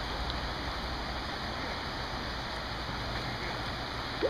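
Shallow river rapids rushing over rocks: a steady, even hiss of moving water. Near the end comes a brief rising squeak.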